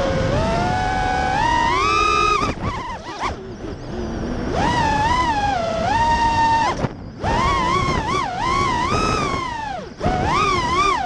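Emax brushless motors of an FPV racing quadcopter, heard through its onboard camera: a loud whine that rises and falls in pitch with the throttle. The whine drops away briefly three times, around three, seven and ten seconds in.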